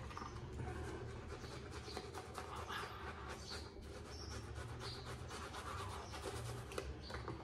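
Shaving brush working wet lather on the face: a steady, crackly swishing of bristles through the foam in repeated strokes, the lather freshly thinned with extra water.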